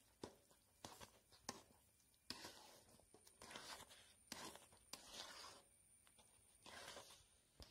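A metal spatula scraping and folding thick banana halwa in a wide metal pan. There are a few sharp taps against the pan at first, then about five short, faint scraping strokes.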